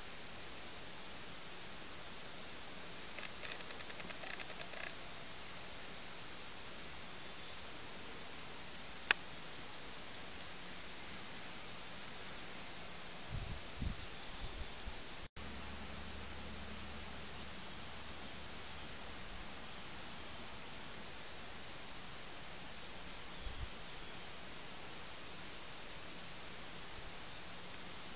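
Steady, high-pitched chorus of crickets chirping, with a brief break in the sound about halfway through.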